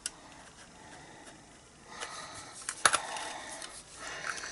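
Cardstock rustling and a few sharp clicks as a cut-out piece of card is handled and fitted into a paper craft punch; one click right at the start and a couple more, with light rustling, in the second half.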